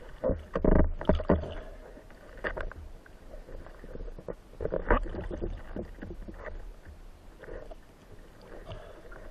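Underwater water noise picked up through a camera's housing as a spearfisher swims with a speargun: a low muffled rumble with irregular sloshing swells and soft knocks, the strongest about a second in and again about five seconds in.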